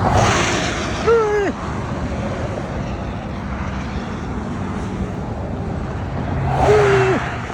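Two vehicles passing on a highway, one just at the start and one about six and a half seconds in, each a rush of tyre and wind noise. As each goes by, a man makes a short, held, high-pitched noise with his voice that drops off at the end. Wind on the microphone underneath.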